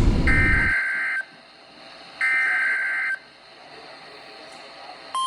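NOAA Weather Radio Emergency Alert System (SAME) header: two buzzy bursts of digital data tones, each about a second long and a second apart, after a short rush of radio noise. Right at the end the steady 1050 Hz weather-radio warning alarm tone begins, signalling an alert about to be read.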